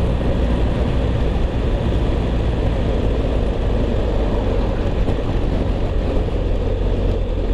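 BMW R1250 GS Adventure motorcycle riding steadily uphill: its boxer-twin engine running under a constant rush of wind on the handlebar-mounted microphone.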